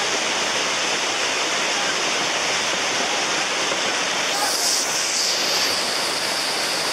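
Steady rush of muddy floodwater flowing over rocks, with a brief hiss about four and a half seconds in.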